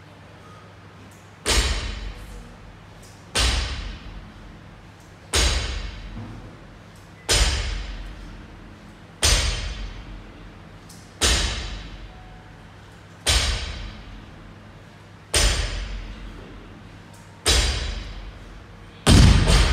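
Loaded barbell with bumper plates hitting the floor at the bottom of each deadlift rep: a heavy thud with a short rattling ring about every two seconds, ten times, the last one the loudest.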